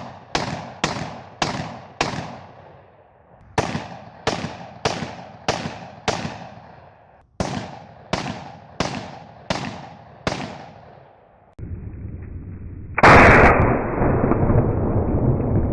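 Smith & Wesson M&P15X AR-15 with a Troy Medieval muzzle brake firing 5.56 rounds semi-automatically: three quick strings of five shots, about two shots a second, each shot echoing away. After about 11 seconds the shots give way to a steady rushing rumble that gets louder about 13 seconds in.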